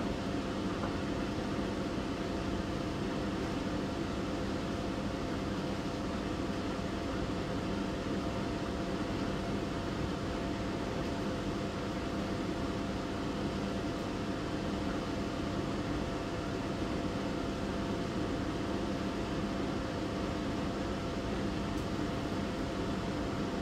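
Front-loading tumble dryer running: a steady whirring hum from its motor and fan.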